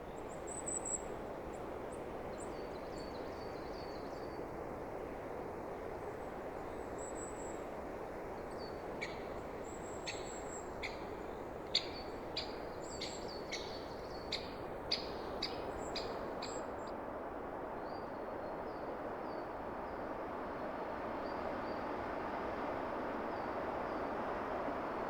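Wind blowing steadily through forest trees, with faint birds calling in the distance. From about nine to sixteen seconds in, a bird close by gives a string of short, sharp chirps. The wind grows a little louder near the end.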